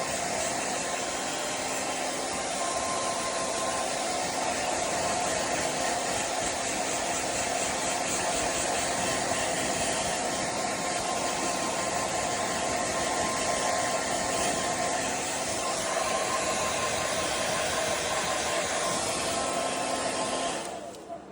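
Hand-held hair dryer blowing steadily, a rush of air with a steady hum under it, switched off near the end.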